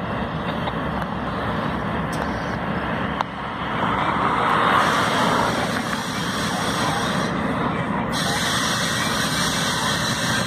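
Two BNSF diesel-electric locomotives running as they haul a unit train of hopper cars closer, heard as a steady noisy drone that swells about four seconds in.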